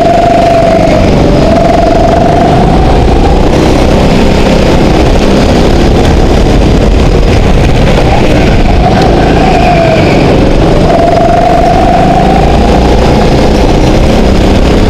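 Go-kart engine heard from onboard, running hard around a track: its pitch climbs steadily along the straights and drops sharply twice as the kart slows for corners, about a second in and again about ten seconds in.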